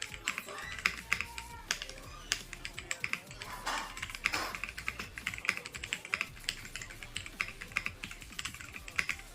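Typing on a Kreo Hive 65 65% mechanical keyboard: rapid, irregular keystroke clicks and clacks, recorded unedited. Two brief rushing noises come near the middle.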